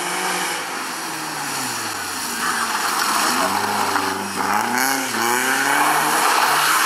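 BMW E36 rally car engine revving up and down: the revs fall, then climb again from about two and a half seconds in, with quick lifts and climbs near the end, getting louder as the car approaches.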